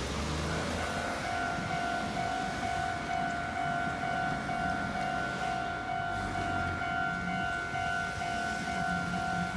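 Japanese railway level-crossing alarm ringing its electronic "kan-kan" tone, a pair of clanging tones repeating in a fast even rhythm. It starts about half a second in, over a low rumble.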